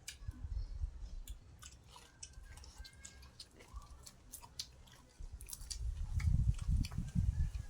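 A person chewing food, with wet mouth clicks and smacks; the chewing gets louder from about five seconds in.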